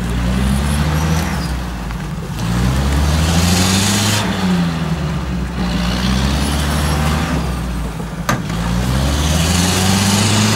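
UAZ-469 off-roader's engine revving up and down again and again as it works in deep mud, with two long surges of hiss from the tyres spinning and throwing mud. A single sharp knock comes about eight seconds in.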